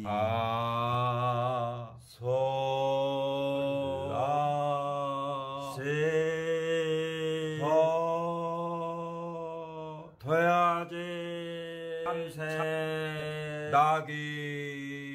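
A man's voice singing long held notes unaccompanied in a chanting style, each note lasting one to two seconds with short breaks between. The pitch shifts from note to note, some notes wavering and some sliding.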